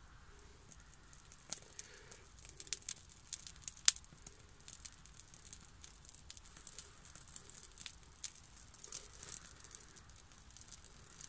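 Small fire of birch bark and dry leaves catching from a match, with faint, irregular crackles and pops; the sharpest comes about four seconds in.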